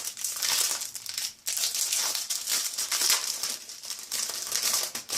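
Packaging of a satin bonnet crinkling and rustling as it is handled and opened, with a short pause about a second and a half in.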